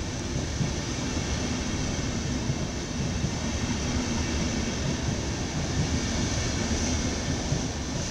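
Passenger coaches of a departing intercity train rolling past on the rails, a steady, continuous rumble of wheels and running gear.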